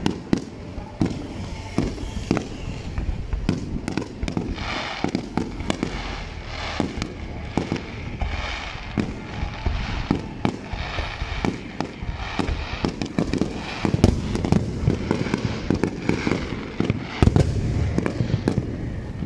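Aerial firework shells bursting in quick succession, a continuous run of bangs and pops with no pause, the loudest bang about three quarters of the way through.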